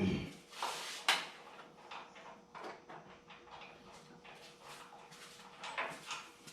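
Scattered knocks, clicks and rattles of hand work on a race car as it is readied for engine removal, opening with a dull thump and a sharp knock about a second later.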